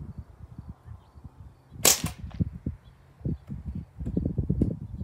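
Ruger 10/22-style BB rifle firing a single shot about two seconds in: one sharp crack with a short ring-out. Low, irregular rumbling runs underneath.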